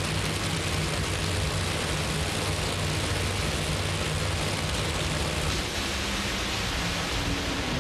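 Drag racing Funny Car engines idling together in a steady low rumble under a loud hiss, as the cars sit waiting to launch.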